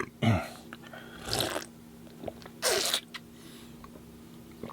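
A person slurping coconut-water juice from a bowl of fruit, three separate slurps about a second apart.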